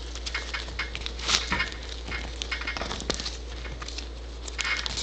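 Handling of a paper Priority Mail envelope and a clear plastic card holder: irregular rustling and crinkling with small ticks and scrapes as the package is opened.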